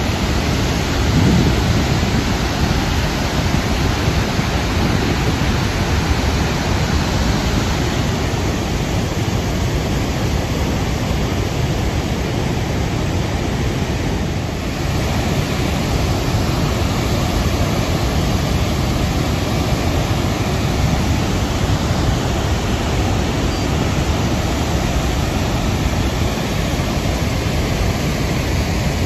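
Niagara's Horseshoe Falls pouring into its plunge pool: a loud, steady rush of falling and churning water, heaviest in the deep end.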